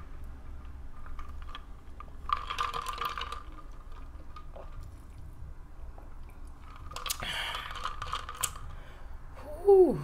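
Sipping a drink from a tumbler, with two spells of slurping a few seconds apart, then a short vocal 'ahh' that falls steeply in pitch near the end, the loudest sound here.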